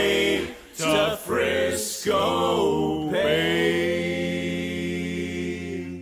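Background music: an a cappella male vocal group singing in harmony. About two seconds in it settles on a long held final chord.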